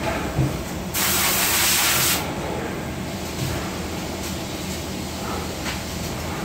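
Steady hum of a factory floor, broken about a second in by a loud hiss lasting just over a second, like a burst of compressed air.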